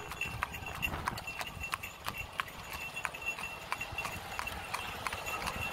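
A horse's hooves clip-clopping on a paved road in a steady rhythm, about three hoof strikes a second.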